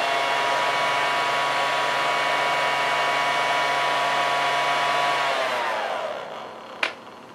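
Tiny RC helicopter motor spinning a 3D-printed plastic turbine impeller at 3 volts: a steady high whine over a hiss of air. About five seconds in it spins down, the whine falling in pitch and fading, followed by a single sharp click.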